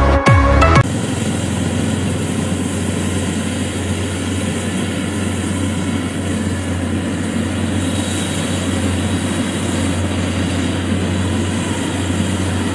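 Electronic intro music cuts off under a second in. After that a Kubota DC-70 rice combine harvester's diesel engine and threshing machinery run steadily as it harvests rice, with a constant low hum under the clatter.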